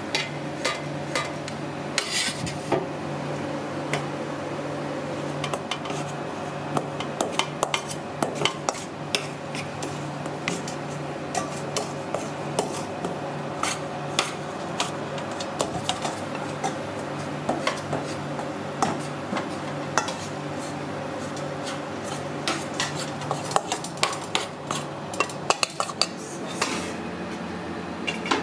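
Metal cooking utensil clanking and scraping against a pan while food is stirred: quick, irregular clinks over a steady background hum.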